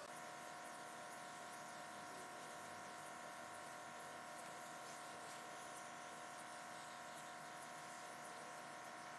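Faint steady hum with a light hiss from a compressed-air paint spray gun spraying finish.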